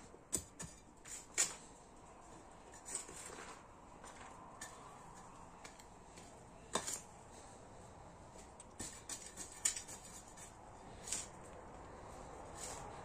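Small homemade metal hand trowel, cut from a broken shovel blade, digging into loose garden soil: irregular short scrapes and crunches as the blade goes in and lifts earth, a few louder than the rest.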